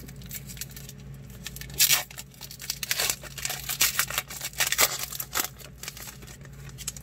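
Foil trading-card pack wrapper being torn open and crinkled, in several short rustling rips, the loudest about two seconds in, with the cards then handled.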